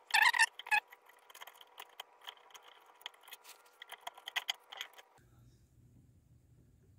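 Hand tools working on an old 7-way trailer socket connector: a run of irregular clicks and snips, with a few louder snaps right at the start, ending about five seconds in.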